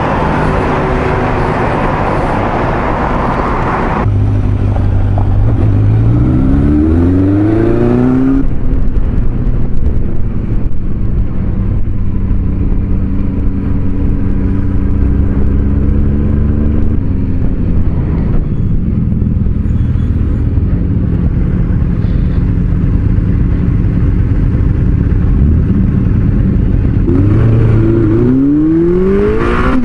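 Suzuki GSX400F inline-four engine heard from on the motorcycle: after a loud rushing noise in the first four seconds, it pulls away, revving up through the gears, then runs steadily at cruising speed, and revs up again near the end as it pulls away once more.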